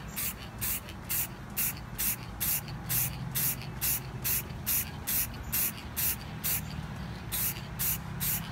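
Aerosol can of Krylon Triple Thick Crystal Clear Glaze spraying in short hissing bursts, about two a second, with a brief pause near the end.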